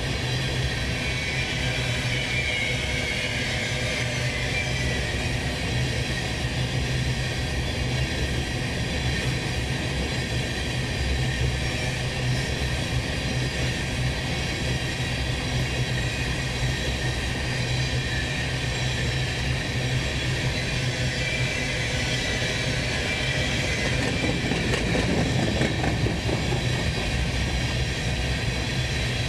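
Empty covered hopper cars of a potash freight train rolling past at steady speed, steel wheels running on the rails.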